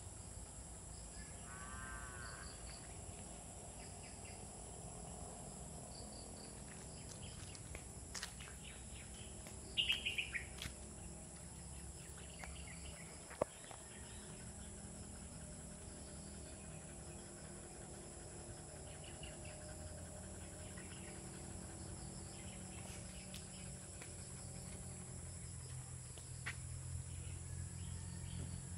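Rural outdoor ambience: a steady high-pitched drone of insects with a few scattered bird calls, the loudest a quick chirping call about ten seconds in. A single sharp click sounds a little after the middle.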